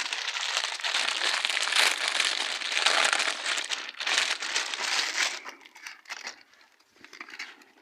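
Plastic packaging being crumpled and crinkled by hand, dense and continuous for about five seconds, then tapering off to a few faint rustles and clicks.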